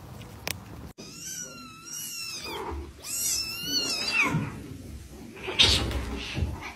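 A kitten mewing in two runs of high-pitched, wavering mews. Near the end comes a short, rough, noisy burst, the loudest moment.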